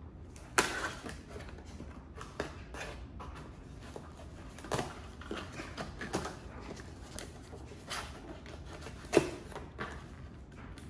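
Scissors cutting the packing tape on a cardboard box, then the tape and cardboard flaps being pulled open: a run of scattered sharp snaps and crinkles, the loudest about half a second in and near the end.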